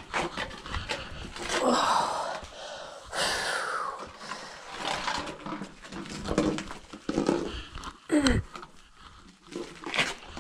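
A hiker breathing hard with wordless grunts and groans of effort, including a falling groan about 8 seconds in, over scuffs and knocks of shoes and clothing against rock while scrambling down.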